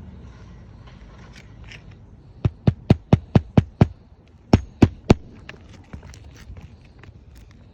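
A hammer striking on a roof: a quick run of seven sharp knocks at about five a second, a short pause, then three more.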